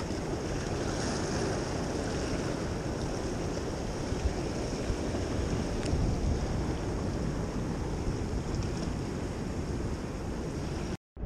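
Ocean surf washing over the rocks of a breakwater, with wind buffeting the microphone: a steady rushing noise that drops out for a moment near the end.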